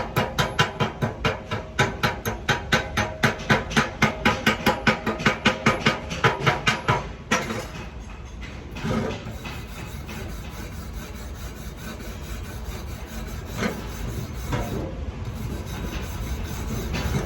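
Fast, rhythmic scraping strokes, about five a second, stop about seven seconds in. After that there is a steady low hiss with a few scattered knocks.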